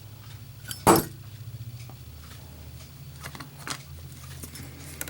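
Zippo lighter's metal lid clacking shut in a drop test, one loud sharp metallic snap about a second in, followed by a few fainter clicks of the case.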